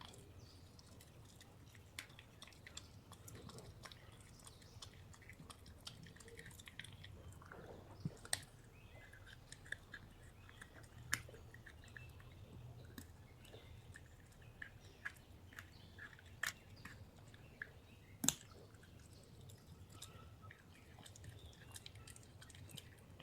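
Faint chewing: irregular small crunches and sharp clicks over a low steady hum.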